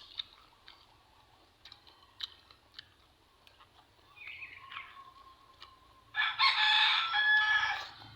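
A rooster crowing once, loud and about two seconds long, starting about six seconds in. Before it, scattered faint clicks and small knocks.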